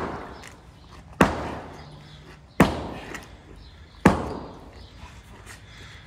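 Sledgehammer blows on a concrete floor, breaking it up: three heavy strikes about a second and a half apart, each fading away over about a second.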